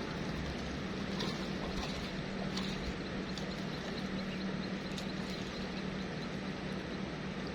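A motor running with a steady low hum over a constant rushing background, unchanging throughout, with a few faint ticks.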